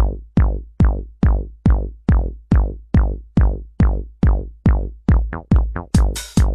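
Electronic dance music: a heavy drum-machine kick beating steadily at about two and a half hits a second. Just after 5 s it speeds up into a quick roll, and near the end the hi-hats come in over the kick.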